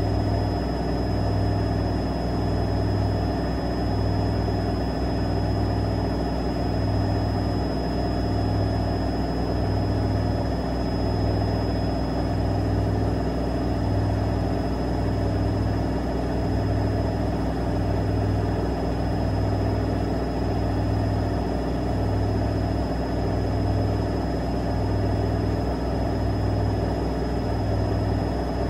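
AEG washing machine's drum spinning at high speed during an intermediate spin, a steady running whir with a low hum that swells and fades about every second and a half.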